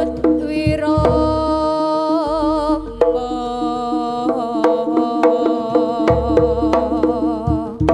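Live jaranan ensemble music: regular kendang hand-drum strokes under steady held notes and a wavering melody line.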